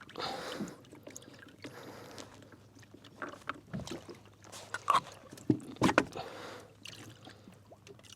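Kayak pedal drive being handled to clear a fouled drive: plastic knocks and clunks with splashing water, including a few sharp knocks about five to six seconds in.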